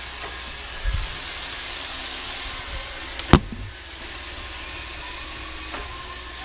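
Frozen stir-fry vegetables sizzling in a hot frying pan, with a dull thump about a second in and a sharp knock a little past halfway, after which the sizzle is quieter.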